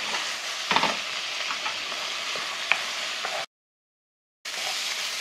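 Meat, shrimp and chopped vegetables sizzling steadily in a frying pan as they are stir-fried with a wooden spoon, with a few sharp clacks of the spoon against the pan; the onions are being cooked until half translucent. The sound cuts out completely for about a second past the middle, then the sizzling resumes.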